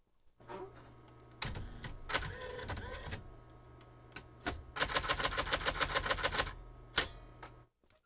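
Smith Corona Ultrasonic 350 electronic daisy-wheel typewriter being switched on: a click, then a steady low hum with its print mechanism whirring, followed by a fast even run of ticks, about ten a second, and a final click.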